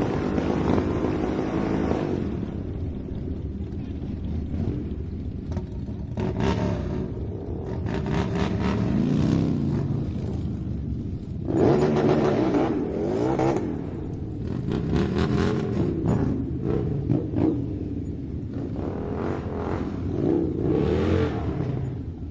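Motorcycle engines revving again and again, the pitch climbing and falling with each blip, with several louder surges through the stretch.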